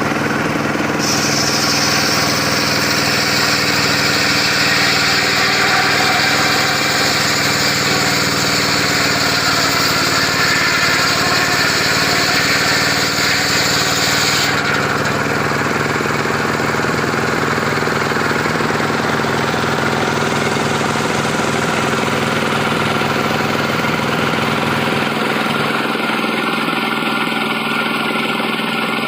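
Engine-driven portable sawmill running steadily, with an added high, hissing whine from about a second in until about halfway through.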